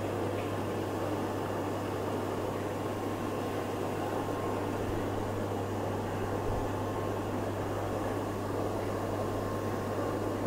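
Steady low hum and even hiss of the aeration in a room full of aquarium tanks: air pumps running and air bubbling through the sponge filters.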